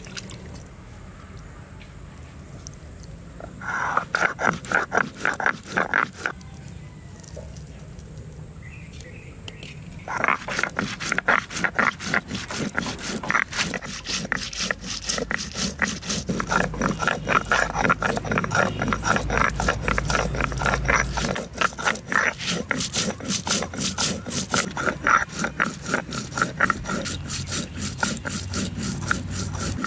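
A cylindrical grinding stone is being rolled back and forth over cumin seeds on a flat stone slab (Bengali sil-nora), making a gritty, rhythmic scraping. A short run of strokes comes about four seconds in, then a pause, then steady grinding from about ten seconds on.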